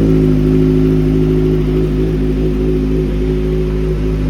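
Motorcycle engine idling steadily through an Arrow aftermarket exhaust, an even low note that holds one pitch without revving.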